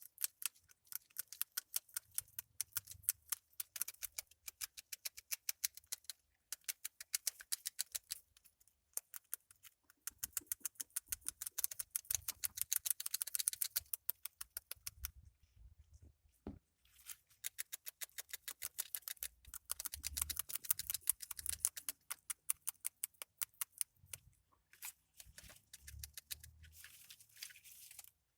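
Grasscutter (cane rat) eating: its teeth chew in rapid, crisp clicks, about ten a second, in runs of several seconds with short pauses between. One duller knock sounds in a pause about halfway through.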